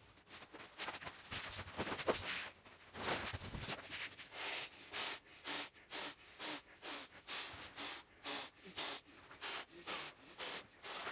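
Klymit Static V2 inflatable sleeping mat handled with its thin fabric rustling, then blown up by mouth: short breaths into its valve, about two a second.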